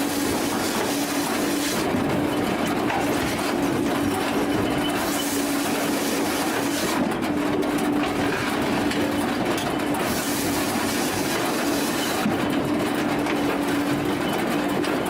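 Firewood processor machinery running steadily, a continuous mechanical din with a constant droning tone and a hiss that swells and fades.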